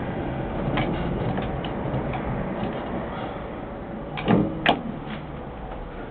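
Steady hum and rumble inside a tram cab as the tram creeps forward in a queue, with scattered light clicks and a short louder knock ending in a sharp click about four and a half seconds in.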